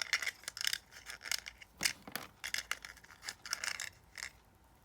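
Small plastic toy pieces and their packaging being handled: a quick run of light clicks, taps and rustles that stops about half a second before the end.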